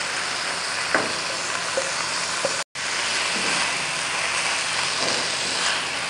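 Boiled rice sizzling in hot oil and spices in a nonstick wok while a silicone spatula stirs and tosses it, a steady hiss with a few light knocks of the spatula against the pan. The sound cuts out for an instant near the middle.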